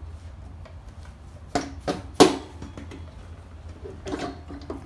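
Sharp metal clicks and knocks, the loudest a little past two seconds in, as the front axle is worked out through the front wheel hub and forks of a Harley-Davidson Road King; a few lighter knocks near the end.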